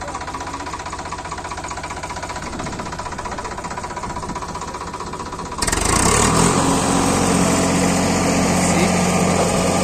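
Tractor's diesel engine idling with a steady pulse; about five and a half seconds in the sound suddenly jumps louder into a dense rushing noise with a steady hum as the rear-mounted hydraulic rotary road-sweeper brush starts up and runs.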